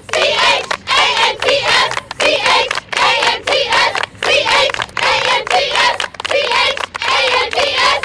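A group of women singing a chant together in a steady rhythm, clapping along.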